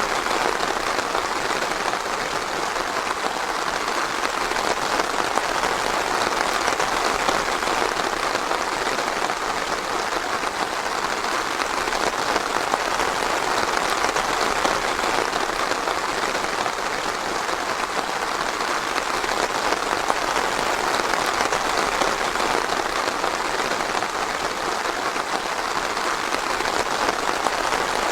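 Steady rain falling on foliage and ground: a dense, even patter of many small drops.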